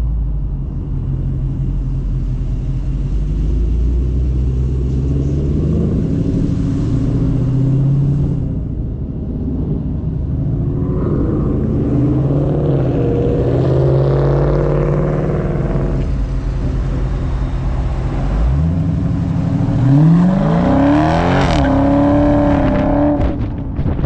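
Dodge Charger Scat Pack's 392 HEMI V8 pulling along at a steady low drone, with a few short rises in revs midway. Near the end it accelerates hard and the pitch climbs steeply twice in quick succession.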